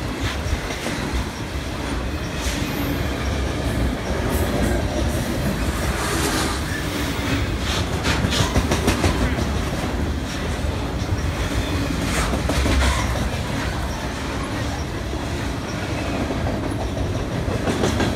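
A freight train of tall open-top cars rolling past: a steady rumble of steel wheels on rail, broken by irregular clicks and clatter.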